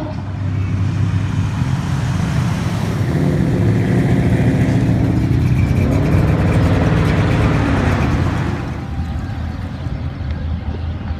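Engine of a lifted square-body pickup truck pulling out close by and accelerating away, its pitch rising about six seconds in. It is loudest from about three to eight seconds in, then other departing cars run on more quietly.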